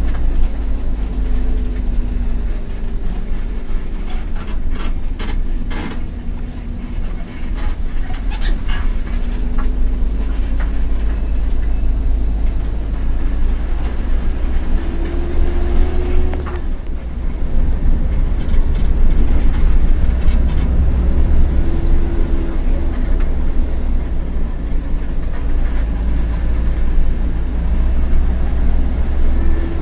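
Old bus running on a steep, winding road, heard from inside: a heavy low engine rumble whose note rises and falls repeatedly as it pulls, with a spell of sharp rattling clicks in the first third.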